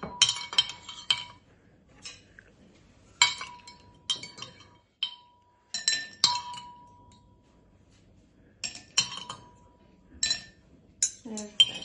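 Metal cutlery clinking against a drinking glass and a ceramic plate, in short clusters of sharp clinks with gaps between them; the glass rings briefly after the louder strikes.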